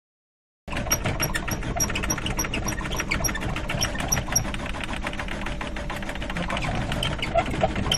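A car engine heard from inside the cabin, running with a rapid, even mechanical ticking over a low rumble; it starts sharply under a second in.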